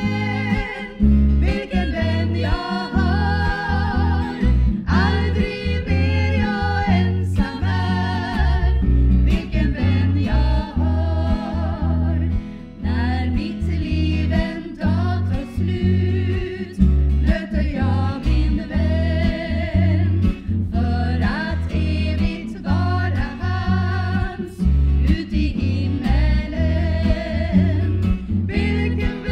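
Three women singing a Christian song together, accompanied by an acoustic guitar.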